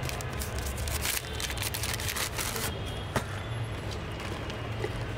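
Jhal muri being tossed in a steel mixing tin: puffed rice and a spoon rattling against the metal in a quick, dense clatter for about the first three seconds, then a single sharp knock. A low steady street rumble runs underneath.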